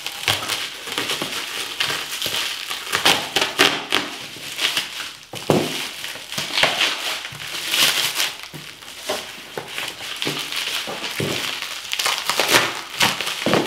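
Plastic wrapping and packing tape on a small parcel crinkling and tearing as it is cut open and pulled off by hand, in a string of irregular rustles and short rips.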